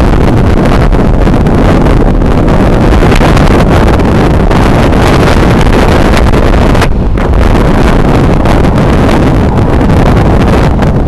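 Loud, steady wind rush buffeting a camera microphone carried on a road bicycle riding at speed, easing briefly about seven seconds in.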